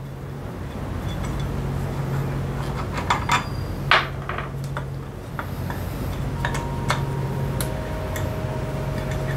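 Metal tools and parts clinking and tapping during scooter drivetrain work, with a few sharper clinks about three to four seconds in, over a steady low hum.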